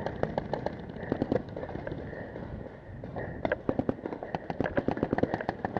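Paintball markers firing: scattered pops in the first second and a half, then after a short lull a rapid string of shots, several a second, from about three and a half seconds in.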